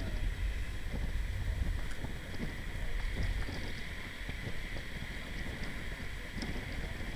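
Wind buffeting the microphone in an uneven low rumble, over a steady high-pitched background hum.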